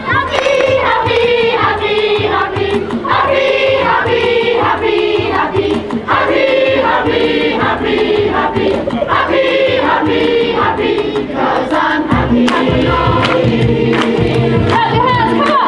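A large choir of women and children singing a song together, with a deep bass accompaniment coming in about twelve seconds in.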